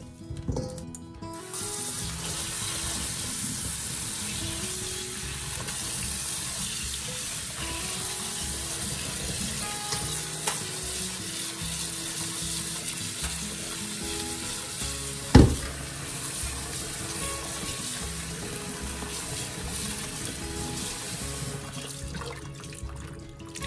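Kitchen faucet running into a stainless steel sink over muscadine grapes in a metal bowl, with hands swishing the grapes in the water. The water comes on a little over a second in and stops near the end, and a single sharp knock stands out about two-thirds of the way through.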